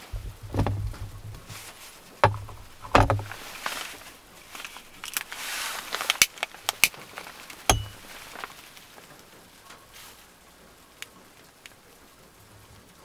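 Knocks and rustling as a plastic lid is lifted off a glass candle holder and set down, then a quick run of sharp clicks about six seconds in as a long-nosed lighter is worked to light the candle.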